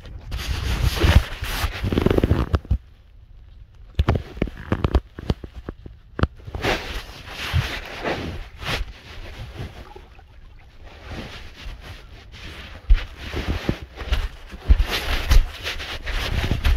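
Handling noise of a phone with its lens covered: irregular rubbing, scraping and knocks against the microphone, with low rumble.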